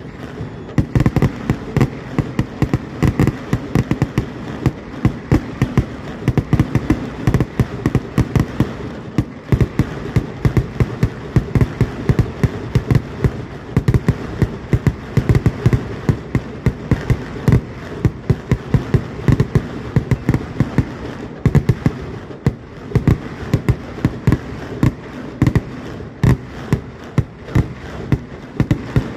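Fireworks barrage: a dense, rapid string of explosions, several loud bangs a second overlapping one another, keeping up without a real break.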